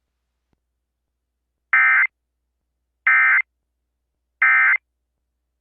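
Emergency Alert System end-of-message code: three short bursts of SAME digital data tones, evenly spaced about a second and a third apart with silence between. They signal the end of the warning broadcast.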